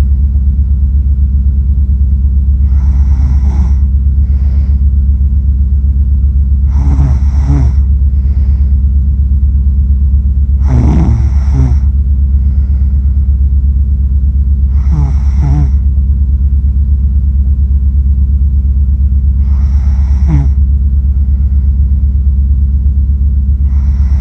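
A sleeping person snoring, one snore about every four seconds, each with a faint breath between, over a loud steady low rumble.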